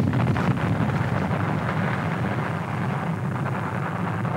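Long low rumble of a large explosive rock blast at the Nile dam construction site, slowly dying away after the detonation.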